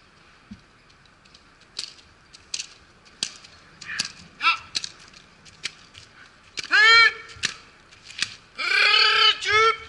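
Scattered sharp clicks and knocks, then a man's loud, high, drawn-out yells, four of them, in the last three seconds, typical of a decoy shouting to challenge a police dog in bite training.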